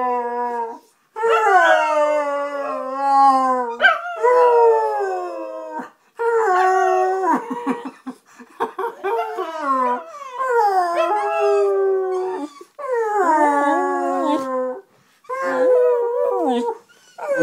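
Dog howling: a string of long howls, most sliding down in pitch, split by short breaths, with choppier broken yips about halfway through.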